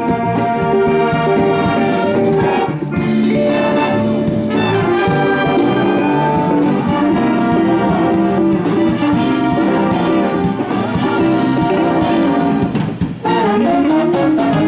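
A school wind band playing a jazz tune, with trumpets and trombones prominent.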